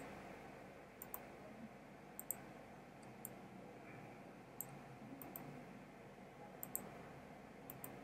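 Faint clicks of a computer mouse button, mostly in quick press-and-release pairs, about once a second over faint background hiss.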